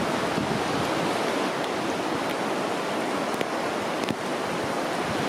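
Steady rushing noise of a creek in flood, its high water running past.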